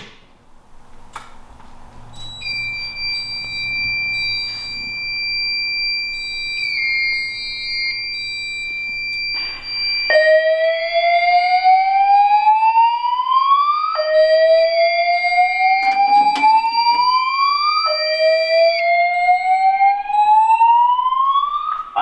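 A fire alarm pull station snaps as it is pulled. About two seconds in, a steady high-pitched tone comes on. From about ten seconds in, the voice-evacuation speakers sound a slow whoop alarm: rising sweeps about four seconds long, repeated three times.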